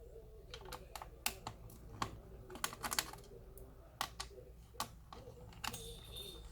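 Irregular sharp clicks and taps of plastic laptop parts and small tools being handled during disassembly, some in quick clusters, with a short scrape near the end. A faint steady hum lies underneath.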